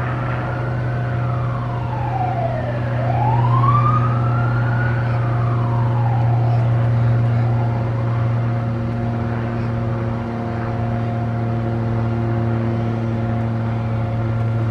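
Emergency-vehicle siren wailing in slow rising and falling sweeps, about two seconds up and two down, fading out about halfway through. A steady low drone of traffic or an engine runs underneath.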